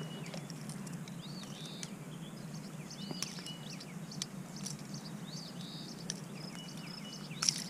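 Small birds chirping in short, repeated calls over steady outdoor background noise, with a few sharp clicks from fishing pliers working a hook out of a smallmouth bass's mouth, the loudest near the end.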